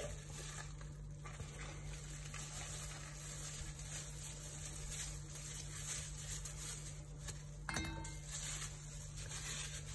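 Faint rustling and crinkling of a thin plastic bag being handled around a raw marinated chicken breast, with one short squeak about eight seconds in.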